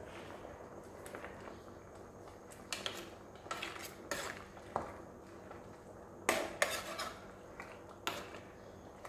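Metal ladle clinking and scraping against the side of an aluminium soup pot as the soup is stirred: a string of irregular clinks, loudest a little past the middle.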